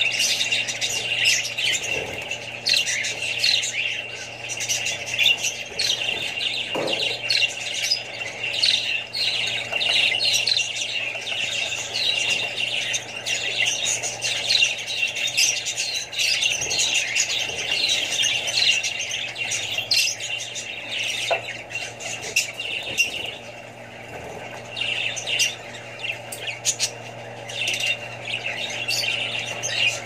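Budgerigars chattering and chirping continuously in quick, overlapping calls, easing briefly a little past the middle before picking up again. A steady low hum runs underneath.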